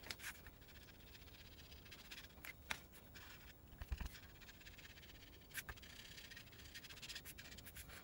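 Faint scratchy rubbing of a foam ink dauber over cardstock, with a few light taps.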